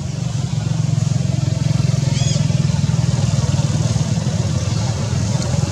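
An engine running steadily, with a low, even pulsing hum. A brief high-pitched chirp comes about two seconds in.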